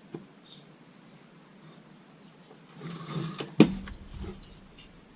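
A chainsaw cylinder being slid over the piston onto the crankcase: faint handling, a brief scrape, then one sharp metal knock about three and a half seconds in, as the cylinder will not sit all the way down.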